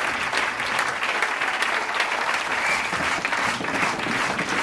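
Large audience applauding steadily: a dense, even clapping without a break.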